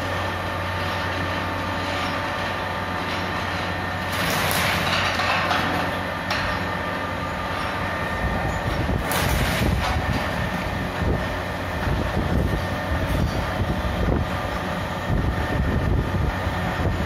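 Chicken-waste shredder running, its rotary blade shafts giving a steady motor and gear hum. The cutters crunch irregularly through raw chicken, more heavily in the second half.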